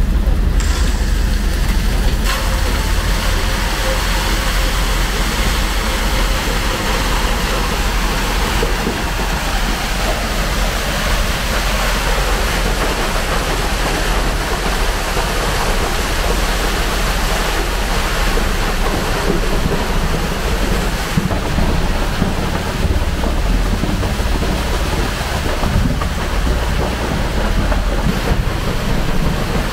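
Concrete mixer truck discharging into a bored pile: the truck engine drones while wet concrete rushes out of the turning drum and down the chute into the tremie pipe, a loud, steady rushing noise.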